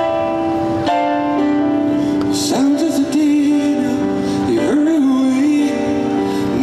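Live solo grand piano playing sustained chords; a man's voice comes in about two and a half seconds in, singing long notes over it.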